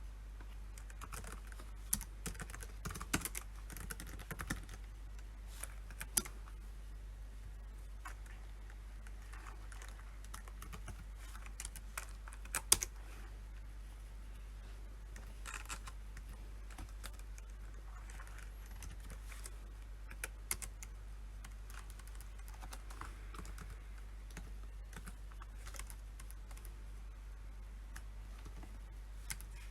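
Typing on a PC keyboard in irregular bursts of key clicks, busiest in the first few seconds and again around twelve seconds in, with a sharp louder keystroke there and sparse taps in between. A steady low hum lies under it.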